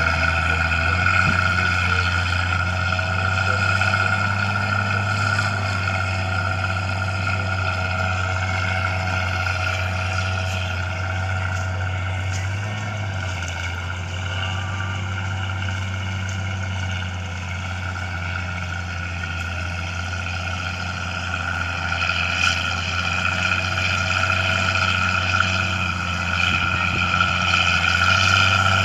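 Crawler bulldozer's diesel engine running steadily under load, with a steady high whine over the low engine note.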